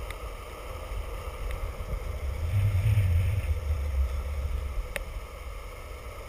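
Skateboard rolling fast on asphalt with wind buffeting the action-camera microphone: a steady low rumble that swells about halfway through, with a few faint sharp ticks.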